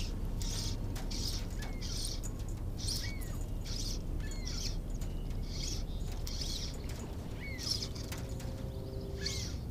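Floating fly line being stripped in by hand through the rod guides: about ten short rasps, most in quick succession, with a pause before the last two, some carrying a slight squeak.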